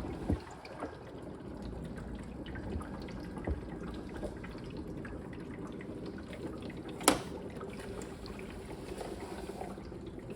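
Bluevua RO100ROPOT-Lite countertop reverse osmosis filter running its flush cycle: water percolating and trickling into its tank, not very loud, with a faint steady hum. A few sharp clicks cut through, the loudest about seven seconds in.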